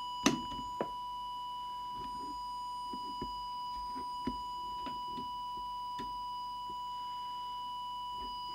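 Small handheld audio oscillator held to a CB radio's microphone, sounding a steady, unwavering whistle as the test tone for measuring FM transmit deviation. A sharp click about a third of a second in and a lighter one just under a second in come from handling.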